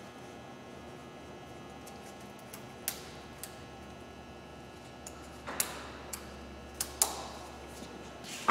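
Light metal clicks and ticks from a spiral lock ring being worked by hand onto the retainer nut of a wireline valve. A few faint ticks come first, then several sharper clicks in the second half.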